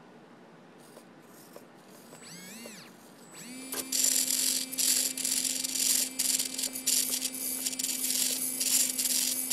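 Micro RC servos buzzing in quick, repeated bursts as they are driven back and forth by radio, starting about three and a half seconds in, over a steady hum.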